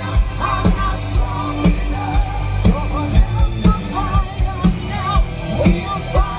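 Live rock band playing over a festival PA, heard from the crowd: a steady drum beat of about two hits a second with guitars and keyboards under a male lead vocal singing held notes with vibrato.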